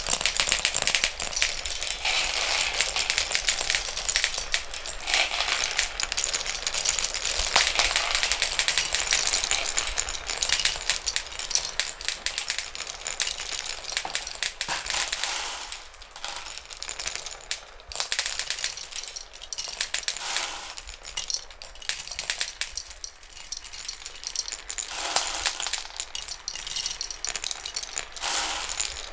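Many marbles rolling and clicking along a wooden marble run's spiral track, a dense rattle of marbles knocking against the plywood and each other. The clatter is busiest in the first half, thins out about halfway through and picks up again near the end.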